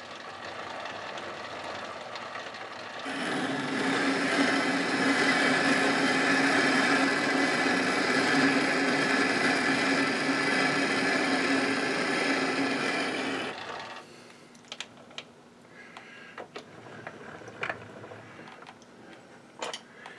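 Metal lathe running under power for about ten seconds, with a steady hum and hiss, during a pass cutting an internal thread in a cast-iron backplate. It then stops suddenly, leaving a few light clicks and knocks.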